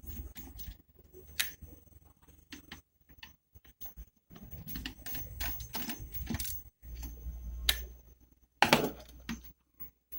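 Irregular small clicks, taps and light metallic clatter of handling tools and parts during electronics repair work, with a louder clatter about eight and a half seconds in. A low hum comes and goes underneath.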